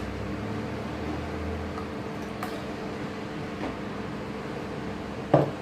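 Chicken pieces frying in a hot buttered pan, a faint steady sizzle over a constant mechanical hum, with a sharp knock about five seconds in.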